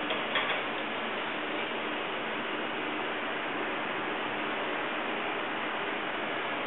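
A 3D scanner running with a steady, even noise, with a few light clicks in the first half second.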